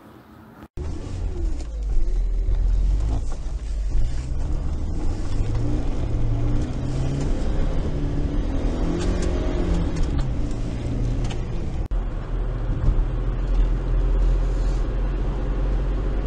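Car engine and road noise heard from inside a moving car, starting suddenly just under a second in. The engine's pitch rises and falls as the revs change.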